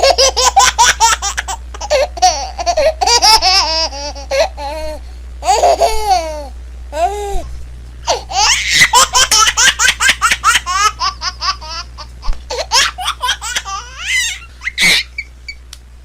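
A baby laughing in fits of rapid, high-pitched giggles, broken by short pauses and a few drawn-out squealing laughs in the middle.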